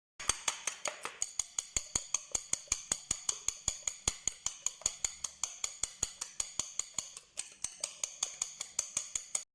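Eggs being beaten by hand in a bowl, the utensil clicking against the bowl in a quick, even rhythm of about six strokes a second, with a short pause about seven seconds in.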